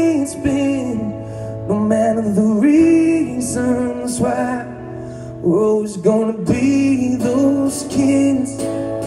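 Live pop-rock band performance: a male voice singing a melody in phrases over strummed acoustic guitar and electric guitar.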